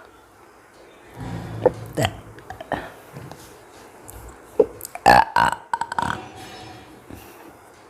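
A woman burping several times, the loudest burps coming about five seconds in.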